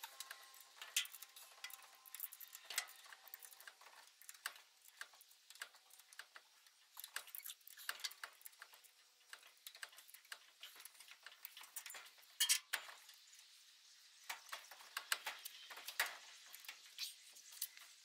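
Irregular light metal clicks, clinks and scrapes of a hand tool working on a driveshaft's universal joint at the differential yoke, with a louder pair of clicks a little past the middle.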